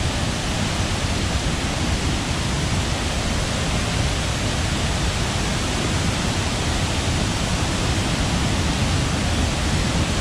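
Loud, steady rush of a waterfall running high and strong after recent rain, the water plunging into a deep drop.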